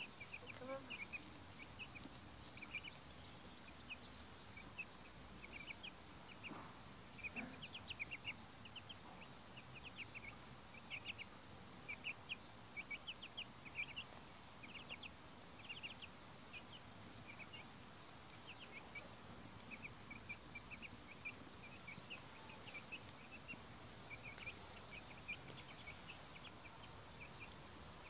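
Young domestic chicks peeping: short, high-pitched cheeps repeated irregularly, often in quick runs.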